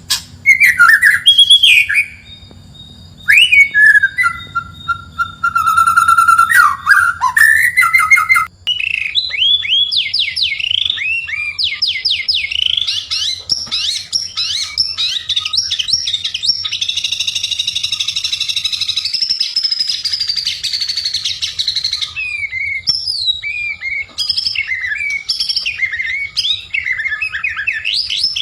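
White-rumped shama (murai batu) singing a long, varied song of clear whistled phrases and quick trills, with a long run of fast, chattering rapid notes through the middle.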